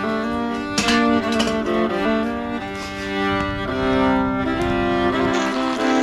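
Background music: bowed strings, violin and cello, playing sustained chords that change every second or two.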